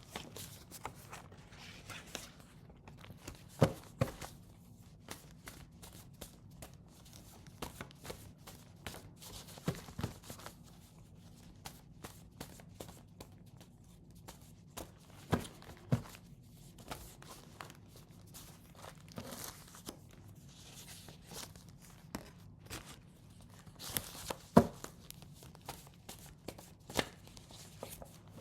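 A deck of cards being shuffled and handled: soft rustling and flicking, with a few sharper, louder snaps.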